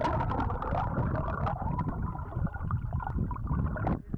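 Stream water heard through a camera microphone held underwater: a muffled, churning rush with many small bubbling pops, which cuts off near the end.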